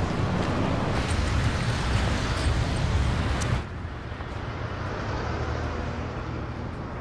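City street traffic: a steady low rumble and hiss of passing vehicles, which cuts off suddenly about three and a half seconds in to a quieter, more muffled background.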